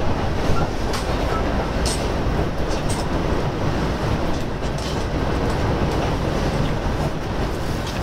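Cabin running noise of a KTR 8000 series diesel railcar: a steady rumble of wheels and engine, with occasional irregular clicks as the wheels pass over rail joints and points.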